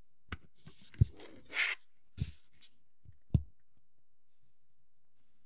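Four sharp knocks and clicks in the first three and a half seconds, with a brief scrape or rustle between the second and third, from plastic model kit parts and tools being handled on a work surface.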